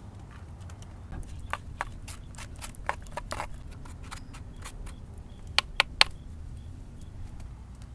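A stick stirring thick acorn mush in a clay pot: irregular sharp taps and clicks against the pot, with three loud knocks in quick succession about six seconds in.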